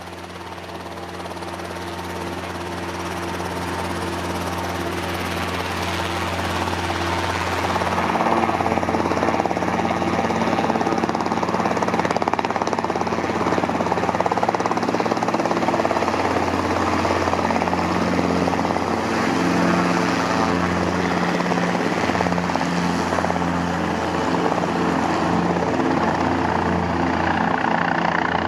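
MBB Bo 105 LS helicopter, with twin turboshaft engines and a four-blade main rotor, approaching to land. The steady rotor beat and turbine noise grow louder over the first several seconds, then hold loud and steady as it comes close.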